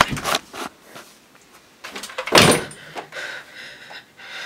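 Thuds and knocks from a scuffle: a body falling to the floor at the start, then one loud sudden thump about two and a half seconds in.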